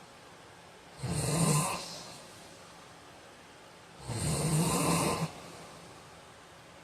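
A man snoring in his sleep: two snores about three seconds apart, the second longer than the first, each fading away afterwards.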